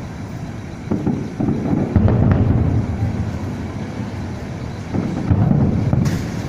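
Fireworks bursting at a distance: low rumbling booms that swell about a second and a half in and again around five seconds in, with wind noise on the microphone.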